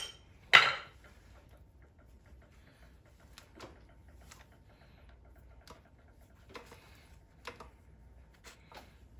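Hand inseaming on a leather shoe: a short rasp about half a second in, then scattered faint clicks and ticks as the awl, needles and thread are handled through the welt.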